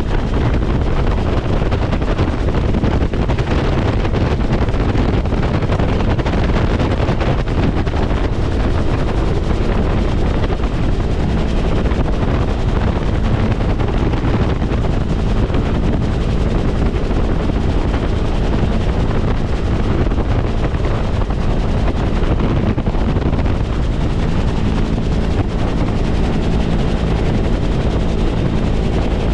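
Bell UH-1 Huey helicopter in flight, heard from aboard: its turbine engine and rotor running steadily, with wind buffeting the microphone.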